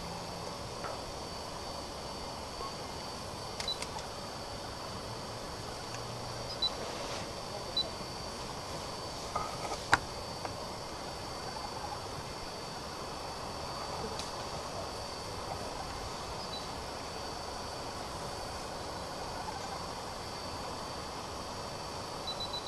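Steady hiss and handling noise from a handheld camcorder held still at night, with a faint constant high whine. A few soft clicks and knocks fall in the first half, the sharpest about ten seconds in.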